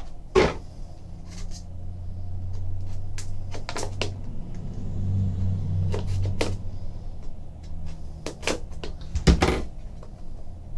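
Box cutter slicing the seal on a cardboard trading-card hobby box, with a string of short scrapes, taps and knocks as the box is turned and handled. A low steady hum runs underneath.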